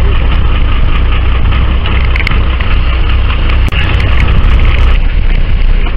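A fishing boat's engine running steadily with a deep, constant hum, briefly dropping out a little past halfway.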